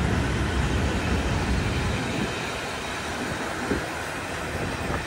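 Passenger train rolling past along the platform: a steady rush of wheels on rail, heavy for the first two seconds and then easing as the coaches go by.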